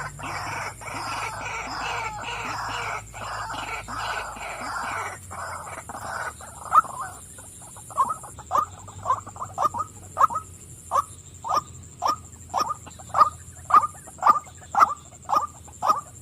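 White-breasted waterhen (female) calling: a dense run of overlapping croaking calls, then from about six seconds in a steady series of short, separate 'wak' notes, nearly two a second.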